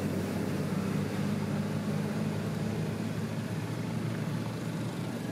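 Steady low drone of a running engine, even throughout.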